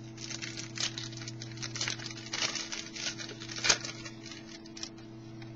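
Trading cards being handled and slid against one another: a quick run of crisp clicks and rustles, loudest about three and a half seconds in, dying away near the end. A steady low electrical hum lies under it.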